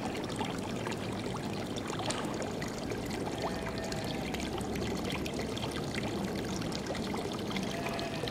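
Water running and trickling steadily, with scattered faint clicks and a couple of brief faint whistles.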